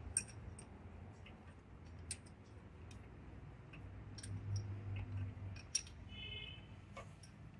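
Scattered light metallic clicks and taps as the rocker arms and rocker shaft are handled and seated on a diesel truck's cylinder head, over a faint low hum.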